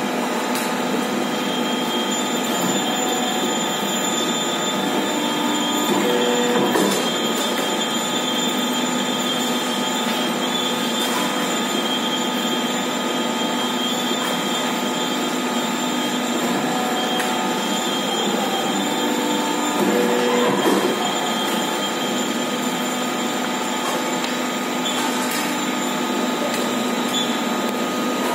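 Hydraulic power pack of a 60-ton deep-draw press running steadily, its electric motor and pump giving a whine made of several steady tones. About six seconds in and again about twenty seconds in it grows louder and its tones shift for about a second, as the press works through a stroke.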